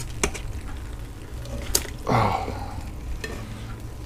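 Metal tongs clicking against a pressure cooker's pot and squelching through cooked pork and sauerkraut in their juice as the meat is lifted out. A few sharp clicks, with a brief louder wet noise about halfway.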